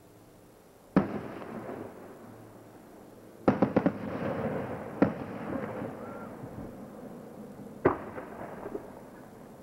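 Aerial fireworks bursting. There is a single bang about a second in, then a quick run of four or five cracks around three and a half seconds, then single bangs near five and eight seconds. Each bang trails off over a second or so.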